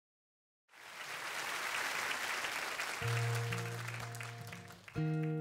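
Audience applause fades in after a moment of silence. About three seconds in, an acoustic guitar chord is strummed and left ringing over the thinning applause, and a second strummed chord comes near the end.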